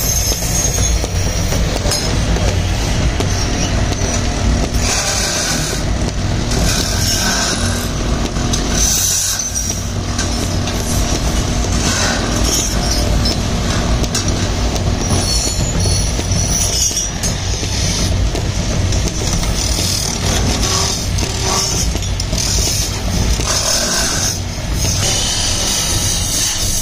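Belt-driven lathe running steadily while a hand-held cutting tool scrapes a spinning brass diya, giving repeated high-pitched scraping every few seconds over the machine's low hum.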